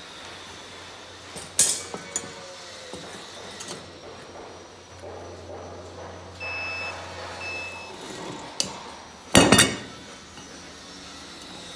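Metal striking metal: scattered clinks and knocks, two of them sharp and loud, about one and a half seconds in and near the end, over a steady background hiss.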